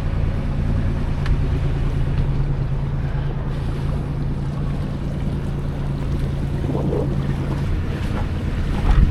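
Yacht's engine running at a steady low hum while the boat motors along, under wind buffeting the microphone and water noise. The hum drops away about three-quarters of the way through, and wind gusts grow louder near the end.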